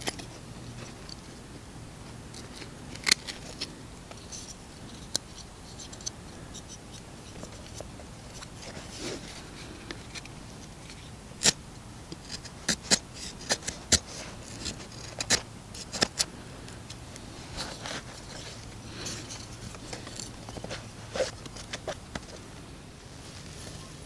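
Knife blade carving wood by hand: irregular short scrapes and sharp snicks as the edge shaves and cuts into the wood, coming thickest about halfway through.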